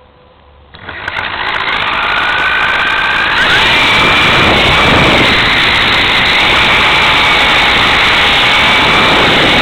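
Electric radio-controlled helicopter's motor and rotor blades spinning up about a second in, rising over a couple of seconds to a loud, steady whine with rushing rotor noise.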